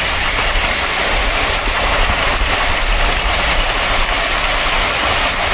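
Storm-force wind blowing hard around a slowly moving car and buffeting the microphone: a loud, steady rush of noise over a deep, uneven rumble.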